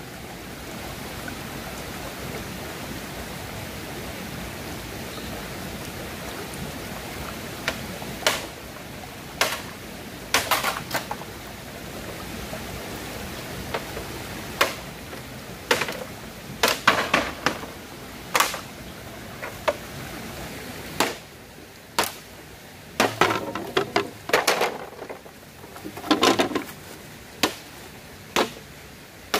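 Steady hiss of flowing stream water. From about eight seconds in, a run of irregular hard knocks and clatters comes in on top of it as bamboo poles are handled and knocked against the stones.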